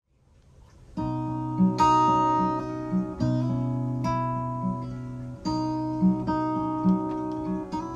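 Instrumental song intro: gentle acoustic guitar chords that begin about a second in, with a new chord struck roughly every two seconds.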